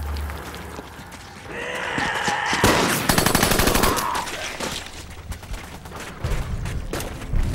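A man's long, drawn-out yell, with a burst of rapid automatic gunfire breaking out over it. The gunfire then thins to scattered single shots.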